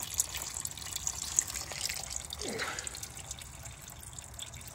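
Engine coolant draining from an open radiator drain plug in thin streams, splashing and trickling steadily into a plastic drain pan, growing slightly fainter toward the end.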